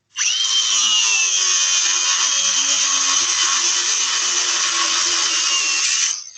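A power tool motor running hard for about six seconds. Its whine jumps up at the start and then slowly sinks. It stops, then is triggered again briefly at the end.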